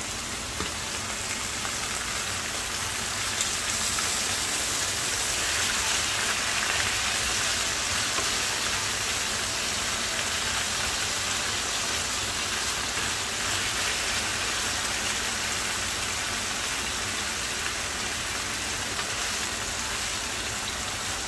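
Salmon steaks sizzling in a nonstick frying pan: a steady hiss of pan-frying as the pieces brown.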